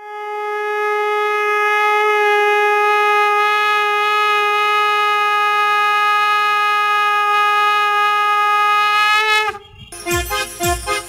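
A conch shell (shankh) blown in one long, steady note that swells in and holds for about nine seconds, its pitch sagging as the breath runs out. Near the end, music with bells and percussion begins.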